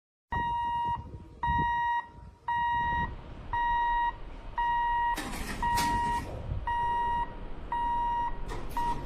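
Electronic warning beeper sounding a steady high tone in regular beeps about once a second, each lasting about half a second. A few short noisy bursts come through about five and six seconds in and again near the end.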